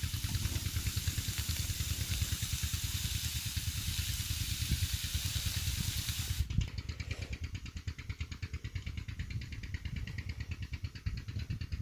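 Minced mutton (keema) sizzling on a hot iron tawa, a steady bright hiss that cuts off abruptly a little past halfway. Underneath, a low, rapid, regular mechanical throb runs on after the sizzle stops.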